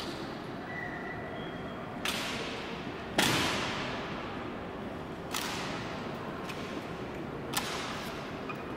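Honor guard rifle drill: four sharp cracking impacts of rifles and boots a second or two apart, each ringing on in a long echo off the marble walls; the second, about three seconds in, is the loudest.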